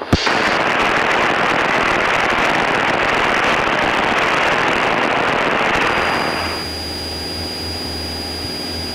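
Steady hiss of radio static in a Cessna 172SP's headset audio. About six and a half seconds in it drops away, leaving a quieter steady engine drone with a thin high tone.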